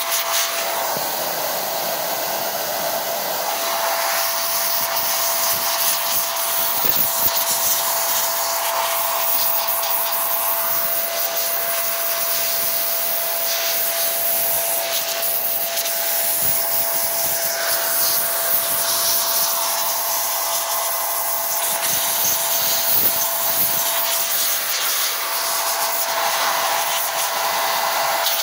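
Handheld XPOWER electric blower running steadily, blowing air over the FPV drone's motors to clear and dry them after washing, with a steady whoosh and a constant fan whine.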